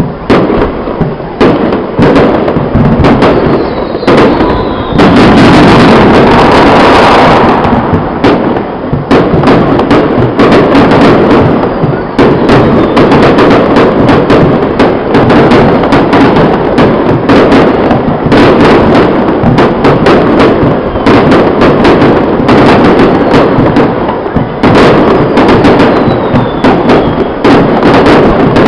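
Fireworks finale barrage: a dense, nonstop run of aerial shell bursts and crackles, loud throughout. About five seconds in, the bursts merge into a solid wall of sound for a couple of seconds.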